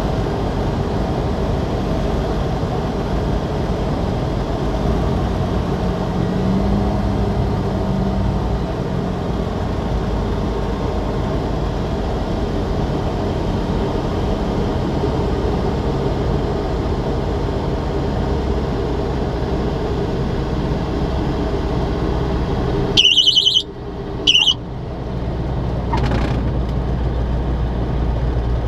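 SportCruiser light aircraft's Rotax 912 engine and propeller running steadily in the cockpit on final approach and through the landing. Near the end come two short high-pitched squeals about a second and a half apart, and the engine noise drops briefly before coming back up.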